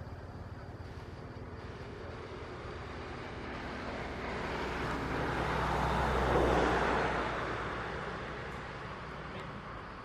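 A motor vehicle passing by: its engine and road noise swell to a peak about six and a half seconds in and then fade away.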